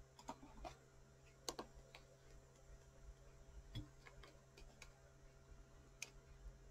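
Near silence: a low steady hum with about nine faint, sharp clicks scattered irregularly, the clearest about a second and a half in and near four and six seconds in.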